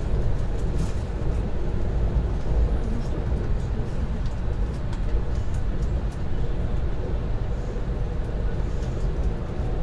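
Lastochka electric train running at speed, heard inside the passenger car: a steady low rumble of wheels and running gear on the rails, with scattered faint ticks.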